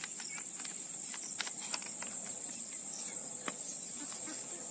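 Insects trilling in a steady high-pitched drone, with scattered small clicks and ticks.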